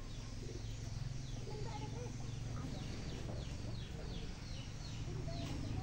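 Outdoor birdsong: a bird repeats short, high, falling notes about three times a second from a second or so in, with faint fowl-like clucking calls lower down and a steady low rumble underneath.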